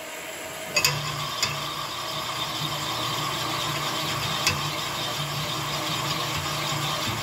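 Sunnen rod honing machine starting up with a click about a second in, then running steadily with a low hum and a grinding hiss as its mandrel hones the big-end bore of a Chevy 283 connecting rod held by hand. A couple of light metal clicks come later.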